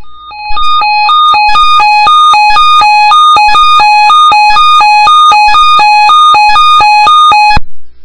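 Weather radio alert tone for a tornado watch: an electronic two-tone alarm switching between a lower and a higher pitch about twice a second. It starts about half a second in, lasts about seven seconds and cuts off suddenly near the end.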